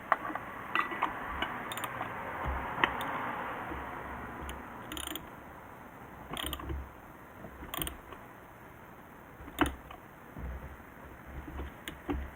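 Hand tools working on the truck during an oil change: scattered metallic clicks and knocks at uneven intervals, with a short rustling swell a second or two in.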